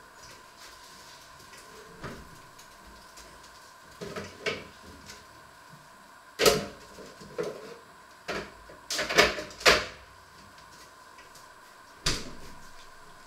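Knocks and clatter of things being handled in a kitchen: a few scattered sharp knocks, the loudest about six and a half seconds in, a quick run of them around nine seconds and one more near the end, over a faint steady high hum.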